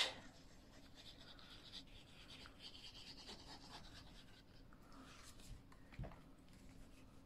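Faint scratching of a glue bottle's nozzle tip drawn along the edge of card stock, then a soft knock as a card panel is laid down and pressed.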